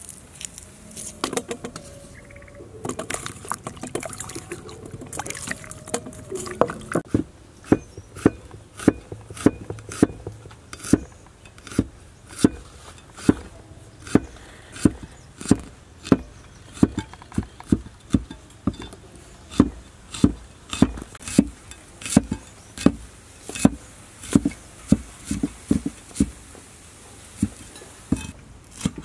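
Heavy cleaver slicing shallots on a thick wooden chopping block: sharp knocks of the blade against the wood, uneven at first, then a steady run of about two chops a second from about seven seconds in.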